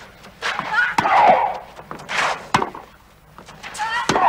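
Tennis rally: a ball struck by rackets three times, about a second and a half apart, with a player's grunt on the shots.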